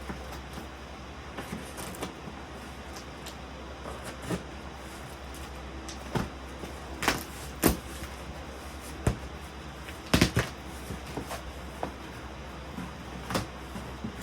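Shipping box and packing being opened and handled: scattered knocks, clicks and rustles, with a few sharper knocks, the loudest about ten seconds in.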